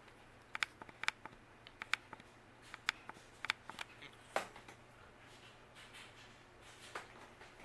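Hampton Bay Cameron II ceiling fan running on medium speed: a faint steady hum with a scattering of light, irregular clicks and ticks, most of them in the first half.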